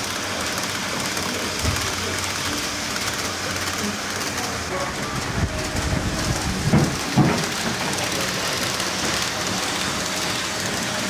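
HO-scale model trains, a Roco ÖBB Railjet and a Liliput WESTbahn KISS, running on the layout: a steady rolling hiss of metal wheels on rail. A few dull thumps break in, the loudest about seven seconds in.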